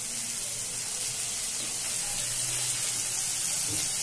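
Chopped capsicum, tomato and onion sizzling steadily in a wok as vinegar is poured in.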